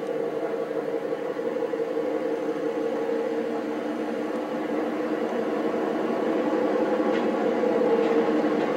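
Fairbanks Morse H-12-44 switcher's six-cylinder opposed-piston diesel engine running steadily as the locomotive approaches and passes close by, growing gradually louder.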